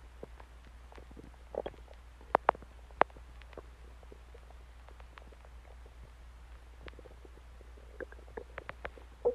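Human stomach gurgling, with scattered short, sharp pops and squelches: bowel sounds (borborygmi). There is a cluster of pops about two to three seconds in and another near the end.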